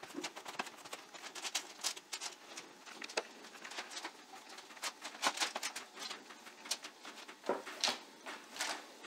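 Hands patting and smushing sticky scone dough flat on a parchment-lined baking sheet: a run of soft, irregular pats and slaps.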